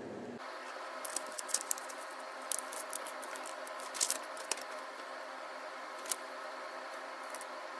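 A sheet of paper being handled and folded by hand: scattered crisp crackles and taps, the loudest a few seconds in, over a steady faint hiss.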